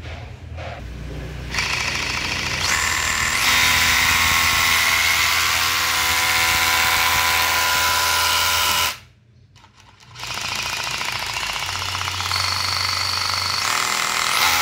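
DeWalt DCH172 20V brushless SDS-plus rotary hammer running in hammer-drill action: a steady hammering whine for about seven seconds, a stop of about a second, then running again to the end.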